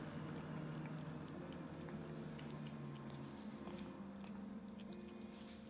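A cat chewing and biting a piece of grilled chicken tenderloin off a plate, a run of small, quick, wet clicks and smacks.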